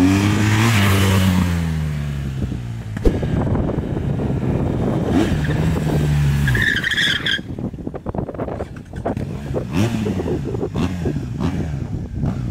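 BMW R1200 GS Adventure's boxer-twin engine revving as the motorcycle is ridden, its pitch rising and falling with the throttle. A brief high squeal comes about seven seconds in.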